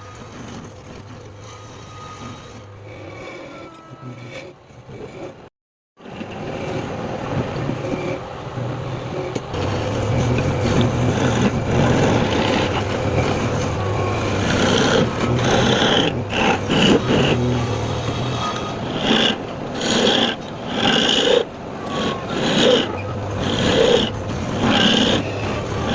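Wood lathe running with a steady motor hum while a tool scrapes against the spinning workpiece. After a brief cut to silence about six seconds in, the scraping is louder and comes in repeated strokes, about one every second and a half in the second half.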